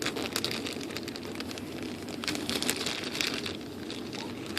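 Plastic packaging crinkling and rustling as it is handled, with many small irregular crackles.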